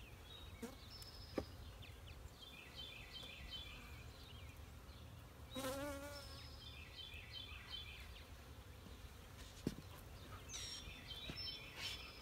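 Honey bees buzzing around an open hive, with one bee flying close past about halfway through in a louder, wavering buzz. Two sharp knocks, one early and one near the end, come from hive frames being handled.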